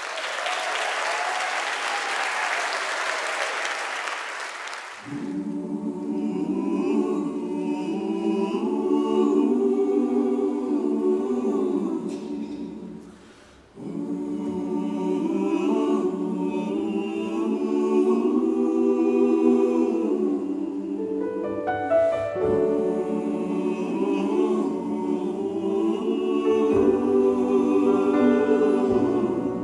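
Audience applause for about five seconds, then a mixed choir of men and women singing together in slow, sustained chords, with a brief break about thirteen seconds in before the singing resumes.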